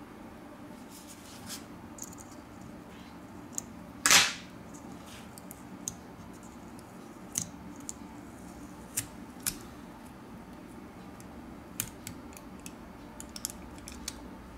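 Adhesive tape and foil shielding being peeled off a smartphone's motherboard by hand: scattered light clicks and crackles, with one short loud rip about four seconds in.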